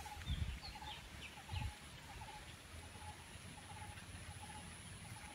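Birds calling faintly, one repeating a short note about twice a second, with a few quick higher chirps near the start, over a thin steady high whine. Two low thuds, near the start and about a second and a half in, are the loudest sounds.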